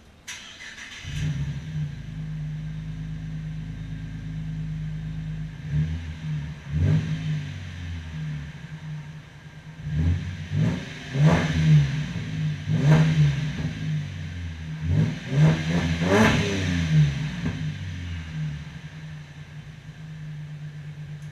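Holden SV6's 3.6-litre V6 running with its exhaust disconnected, so unmuffled. It starts up about a quarter second in and idles, then is revved in several quick blips through the middle, the loudest about halfway. It drops back to a steady idle near the end.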